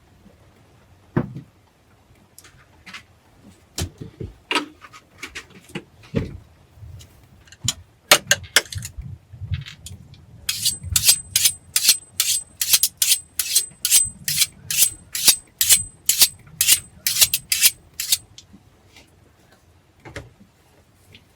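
Scattered knocks and clicks, then a steady run of short rubbing or scraping strokes, about three a second, for several seconds before stopping.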